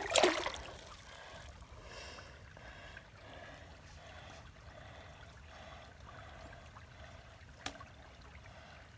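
Shallow creek water trickling and running over rocks, with a short splash of water right at the start as a hand goes into it, and a single sharp click late on.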